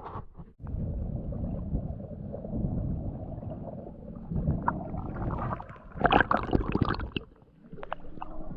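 Underwater river noise: a low rumbling gurgle of flowing water, with a louder cluster of sharp clicks and knocks about six seconds in and scattered clicks after it.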